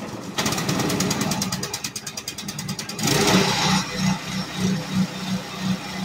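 Predator 212 single-cylinder four-stroke engine, pull-started and running with a fast, even pulsing, driving a long-tail shaft with a home-made flat metal prop. About three seconds in it grows louder and harsher, then settles into a steady throbbing run.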